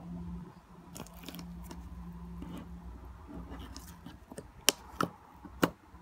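Homemade slime being squeezed and stretched by hand, quiet squishing at first, then sharp sticky clicks and pops roughly every half second from about two-thirds in, over a steady low background hum.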